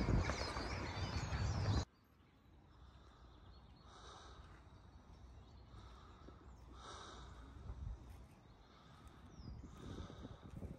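Wind rumbling on the microphone with birds singing behind it, cut off abruptly about two seconds in. After that, a quiet outdoor background with a few faint, short sounds.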